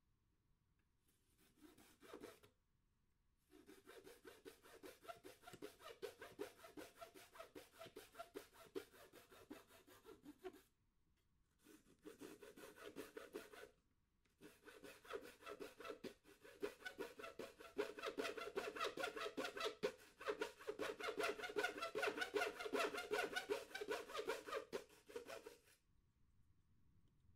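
Small hacksaw cutting through thin MDF board with quick back-and-forth strokes. It saws in four spells with brief pauses between them, and the last spell is the longest and loudest.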